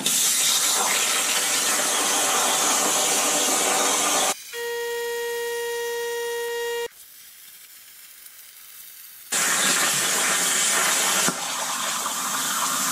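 Plasma torch on a CNC plasma table cutting 1/8-inch steel plate: a loud, steady hiss of the cutting arc and air. About four seconds in, the hiss gives way to a few seconds of steady whining tone and then a quieter stretch, before the hiss returns.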